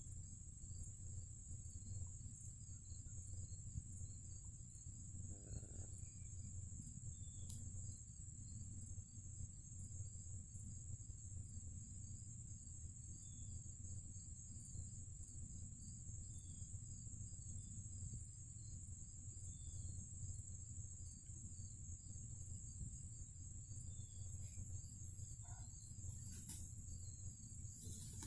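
Steady high-pitched insect chorus with faint regular ticking in it, over a low background rumble, with a few short faint chirps now and then.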